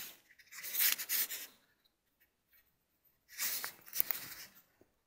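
Rustling and brushing of footsteps through grass, in two stretches of about a second each with a few small clicks.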